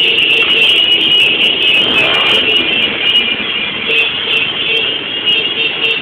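Many motorcycle engines running together in a dense crowd of motorbikes, a loud, steady din.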